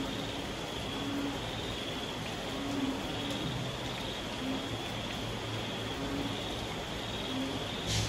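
Moderate night rain falling steadily. Through it, a frog repeats a short low call about every second and a half, over a steady high insect chorus. Near the end there is one sharp tap.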